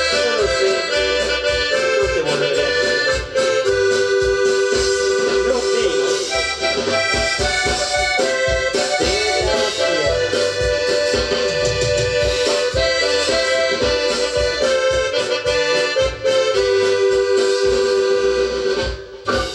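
Live dance-band music: a sustained, reedy melody over a steady bass beat.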